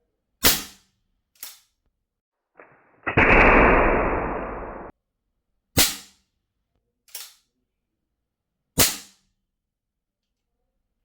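Gas-powered airgun revolver firing shots in an FPS test: three loud sharp cracks, each followed about a second later by a fainter one. A rushing hiss lasts about two seconds between the second and third loud shots.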